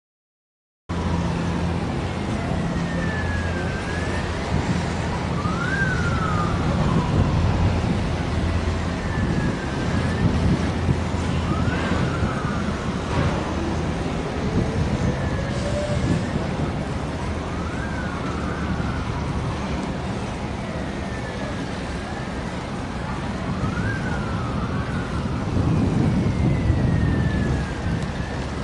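A siren wailing in a repeating pattern, a long falling sweep then a quick rise and fall, about every six seconds, over a steady low rumble. The sound starts about a second in.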